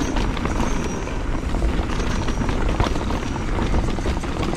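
Ibis HD5 mountain bike riding fast down a dirt trail: a steady low rumble of tyres and wind on the action camera's microphone, with many quick rattles and knocks from the bike over rough ground.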